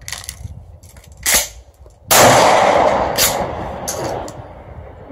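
A pump-action 12-gauge shotgun fires a single Winchester slug about two seconds in. The slug had soaked in water for about ten minutes and fires normally. The loud blast dies away over about two seconds, with metallic clicks of handling and the pump action before and after it.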